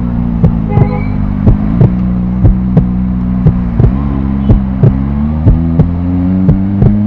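Kawasaki Ninja ZX-25R's 250 cc inline-four engine running at low revs, its pitch starting to climb in the second half as the revs rise. A sharp tick repeats about three times a second over it.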